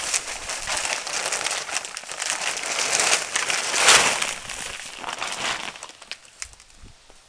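A bag of mushroom compost crinkling as compost pours out of it into a plastic tub. The crinkling is loudest about four seconds in, then drops to light scattered rustling as the compost is spread by hand.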